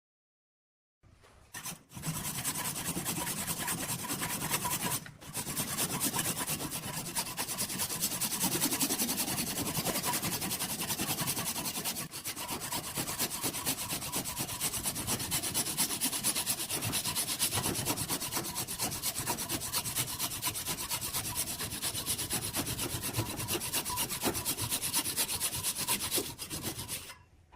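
Abrasive rubbing against wood turning on a lathe: a steady, scratchy sanding sound that starts about a second in, breaks off briefly twice, and stops just before the end.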